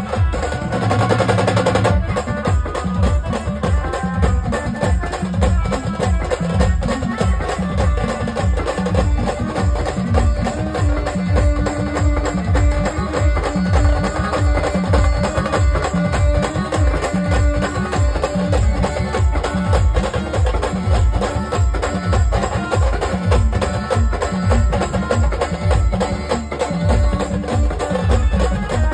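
Marathi procession brass band music played loud through a truck-mounted sound system, driven by a heavy, steady drum beat, with a side drum beaten with a stick on top.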